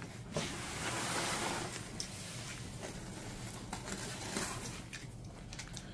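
Faint rustling and a few light clicks and knocks of goods and packaging being handled.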